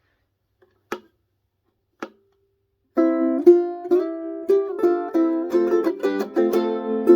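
Five-string ukulele in gGcea tuning, strummed chords starting about three seconds in and changing every half second or so. Before it, two short sharp taps about a second apart.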